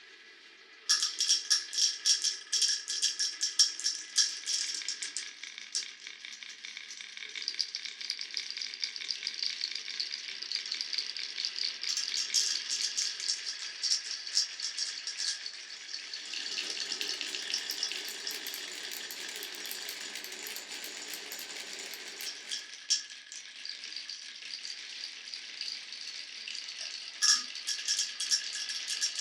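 Many glass marbles running down a wooden marble run, a dense rattle of clicks and clacks as they roll and knock along wooden blocks and rails, starting suddenly about a second in. Between about 16 and 22 seconds a lower, steadier rolling sound joins the clatter.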